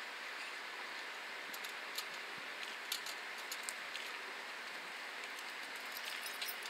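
Faint jingling and clicking of a bunch of keys handled by a walking man, in short spells over a steady background hiss.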